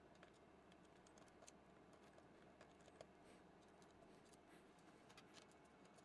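Near silence, with a few faint small clicks of a precision screwdriver working tight screws out of a laptop's case. The clearest click comes about three seconds in.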